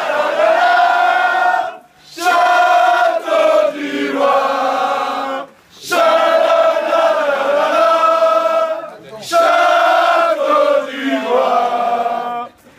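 A group of men singing a chant together, led by one voice, in four long phrases with short breaks between them.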